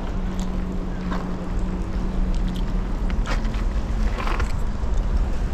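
A steady engine hum over a low rumble of wind on the microphone, the hum fading out about four seconds in, with a few short rustles of handling.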